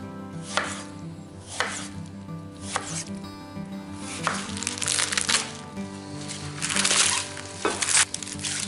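Chef's knife slicing through tomato onto a wooden cutting board: separate strokes about once a second, then longer, noisier cuts through lettuce in the second half. Background music with held tones plays underneath.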